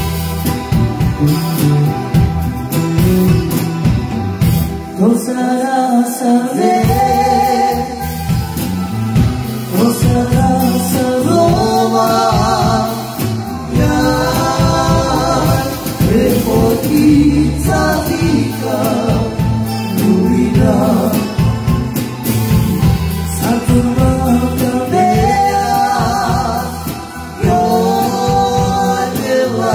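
Live band playing with a drum kit and electric guitars, a male lead singer coming in about five seconds in. The low end drops out briefly as the vocal enters, then the full band carries on under the singing.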